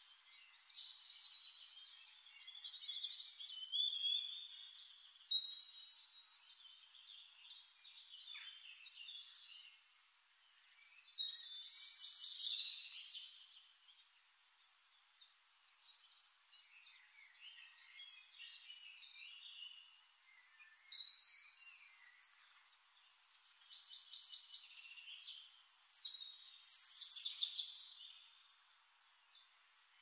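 Birds chirping and singing in short, high-pitched phrases, with louder bursts of song every several seconds.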